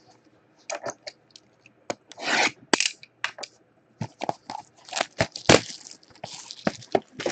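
Hands handling a plastic-wrapped trading card box: a string of sharp clicks and taps with crinkling rustles of the wrap, busier in the second half.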